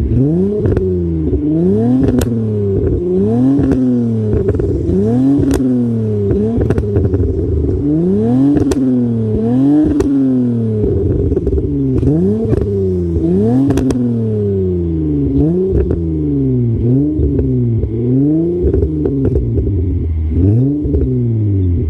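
Honda J35Z2 3.5-litre V6 being blipped over and over, about once a second: each rev rises sharply and falls back. Sharp exhaust pops and crackles sound as the revs drop, which is overrun popping from the engine's tune.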